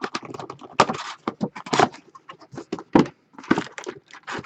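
Plastic wrapping on a pack or box of trading cards crinkling and tearing as it is opened, a run of irregular sharp crackles and rustles.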